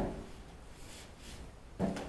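Faint handling of small dryer parts over low room tone, with a short knock near the end.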